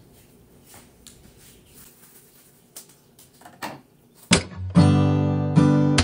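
A quiet room with a few faint clicks, then about four seconds in, loud strummed acoustic guitar music starts as intro music.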